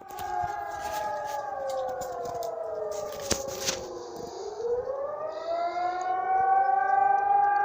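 Civil defense siren wailing: its pitch slides down slowly for about four seconds, then rises again and holds high near the end. A sharp click is heard about three seconds in.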